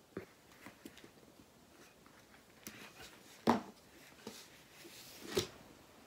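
Soft handling noise of a phone camera being moved about in a small room: scattered faint clicks and rustles, with two sharper knocks about three and a half and five and a half seconds in.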